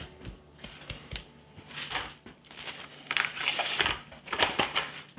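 Plastic cling film crinkling as it is pulled over and pressed around a ball of dough. The rustling grows louder in the second half.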